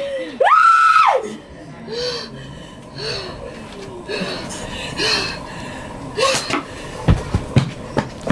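A person's high-pitched scream lasting about a second, then repeated short gasps and whimpers, with a few sharp knocks near the end.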